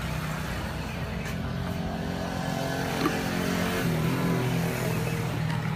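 An engine running steadily: a low hum that shifts slightly in pitch.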